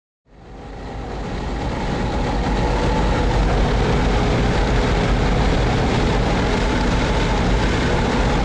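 Steady low rumble of a moving vehicle, fading in over the first couple of seconds and then holding level.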